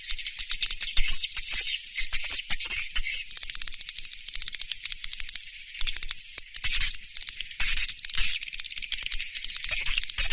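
Swiftlet call recording: many swiftlets twittering in a dense, high-pitched chatter of rapid clicks and chirps, with louder swells every second or so. This is the kind of calling sound played to draw swiftlets into a nesting house.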